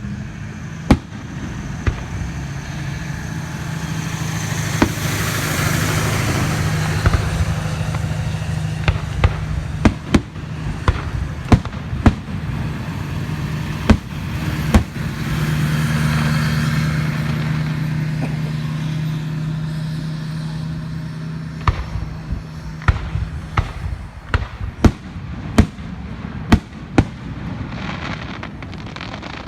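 Fireworks display: sharp, irregular bangs of shells bursting, coming in quicker succession near the end, over a steady low hum.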